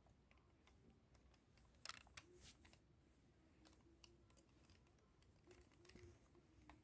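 Near silence with a few faint, sharp clicks and taps about two seconds in, and a couple of softer ticks later.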